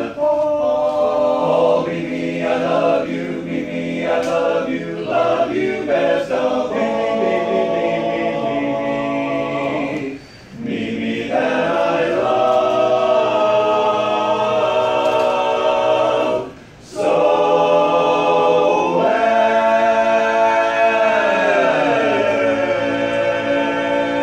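Men's barbershop chorus singing a cappella in close harmony, holding sustained chords. The singing breaks off briefly twice, about ten and seventeen seconds in, and near the end a held chord slides down in pitch before settling.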